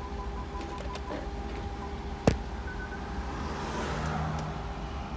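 Low, steady running of a 2011 BMW 550i xDrive's twin-turbo V8, with one sharp click about two seconds in. The engine has a misfire, according to the owner.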